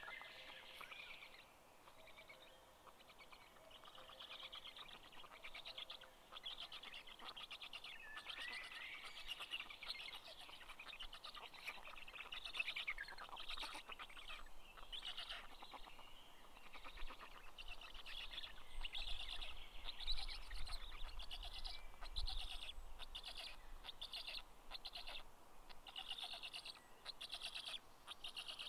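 Forest birdsong: small birds chirping and singing, with rapid trills. A low rumble comes in near the middle.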